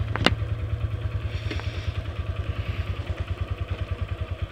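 Honda Verza 150's single-cylinder engine idling with an even, fast pulse, after one sharp click just after the start.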